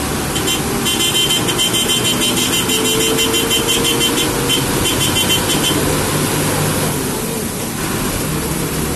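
Bus engine running while driving on a wet road, heard from the driver's cab, with steady tyre and road noise. A rapid, evenly pulsing high-pitched sound runs over it from about half a second in and stops about six seconds in.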